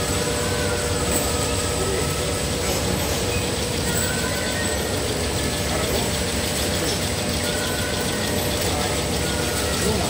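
Rotary ampoule washing machine running: a steady mechanical hum with a fast, even ticking of the ampoule grippers and feed.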